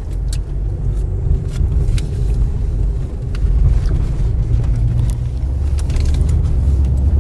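Car driving, heard from inside the cabin: a steady low rumble of engine and tyres, with scattered short clicks and knocks as it rolls over rough ground.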